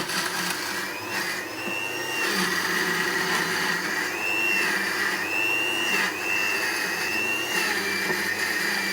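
Panasonic countertop blender motor switched on and running, with a whining pitch that wavers up and down as the blades churn the load.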